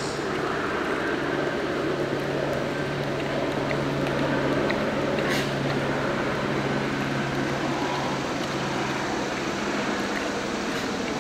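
A steady low mechanical hum over even background noise, with one faint click about five seconds in.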